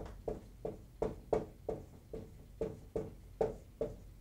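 Dry-erase marker squeaking on a whiteboard as a word is written by hand: a quick run of short, separate strokes, about three a second.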